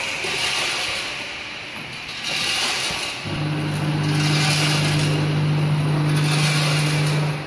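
Small vertical form-fill-seal packing machine with a volumetric cup filler running, a mechanical clatter repeating about once a second as it cycles bag by bag. A steady low hum joins about three seconds in.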